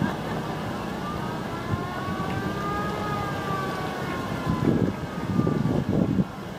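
Vintage military vehicles driving slowly past, a Land Rover and then an open military jeep, their engines running. The jeep's engine is louder and uneven as it draws close near the end. Over the traffic, a siren wails once, slowly rising and then falling.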